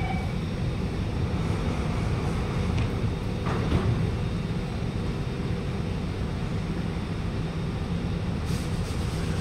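Alstom Movia R151 metro train standing at the platform with a steady low hum, and a brief thud about three and a half seconds in as the train and platform screen doors shut.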